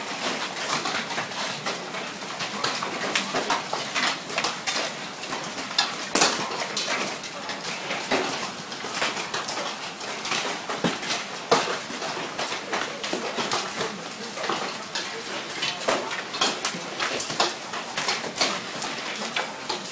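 Large hailstones, some of them baseball-sized, pelting down: a dense, irregular clatter of sharp impacts over a steady hiss.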